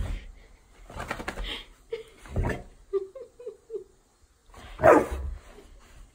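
A dog barking and whining as it resists having its ears cleaned: a quick run of short high whines about three seconds in, and one loud bark just before the five-second mark.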